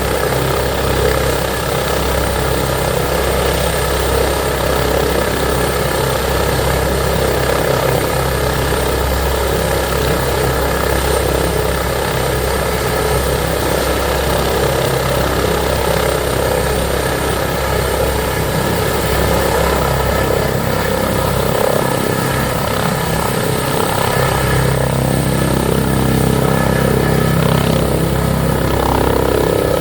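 Airbus H145 D3 helicopter with its twin turboshaft engines and five-blade main rotor running loud and steady at close range, lifting off from the ground partway through.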